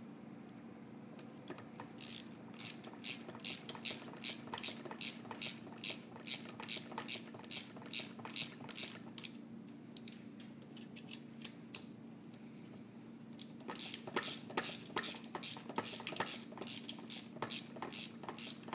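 Ratchet wrench clicking in quick back-and-forth strokes, about two clicks a second, tightening the bolt that holds the jaws of a pneumatic hog ring plier. The clicking comes in two runs, with a pause of a few seconds in the middle.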